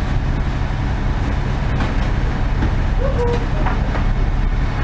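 A fishing vessel's engine running with a steady low drone, with a few light knocks from gear on deck.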